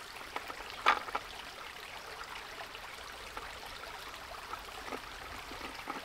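Shallow creek water trickling and flowing steadily, with one brief knock about a second in.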